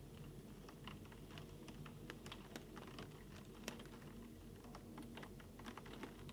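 Typing on a keyboard: faint, irregular key clicks, several a second, over a low steady hum.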